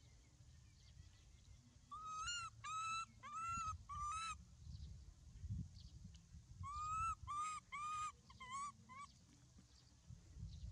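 An animal calling in two quick series of short, arched, pitched calls, four and then five, about a second apart between the series, over a low rumble.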